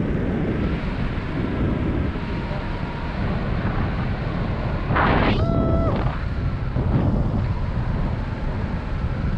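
Wind buffeting the camera's microphone during a tandem paraglider flight, a steady heavy rumble. About halfway through there is a brief louder rush with a short, steady high tone lasting about half a second.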